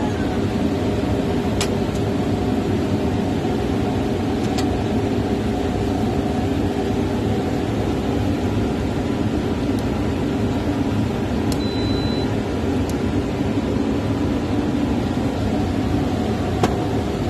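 Generator set's engine running steadily: a loud, even drone, with a few light clicks and a short high beep near the middle.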